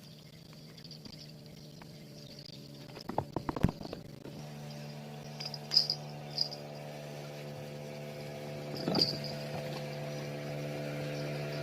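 Insects chirring steadily. About four seconds in, after a few clicks, a small boat engine comes in with a steady low hum that grows a little louder.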